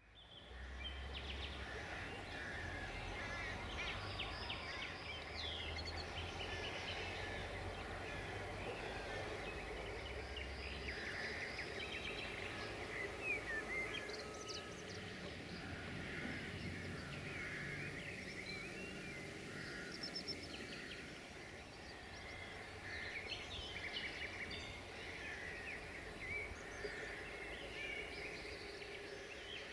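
Birds chirping and singing over steady outdoor background noise, with a low hum underneath that stops about eleven seconds in.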